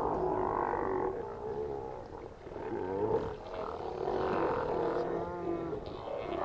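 A group of sea lions roaring and growling, many calls overlapping.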